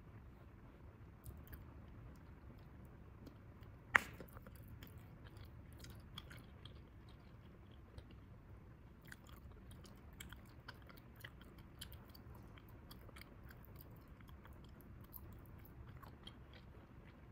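Bubble gum being chewed quietly: soft, wet clicks and smacks throughout, with one much louder sharp snap about four seconds in.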